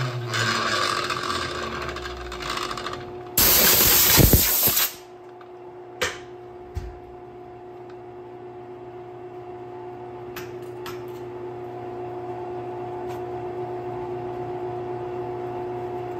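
Grinder in a lathe-mounted jig grinding down the rubber of a spinning balloon tire to true it. About three and a half seconds in there is a loud rush of noise lasting a second and a half. Then the grinding stops, leaving a steady machine hum with a couple of clicks.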